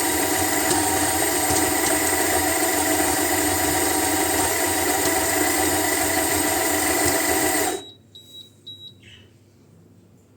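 Hibrew G3 electric coffee grinder's motor running steadily while grinding coffee beans, then stopping abruptly near the end. A few short high beeps follow right after it stops.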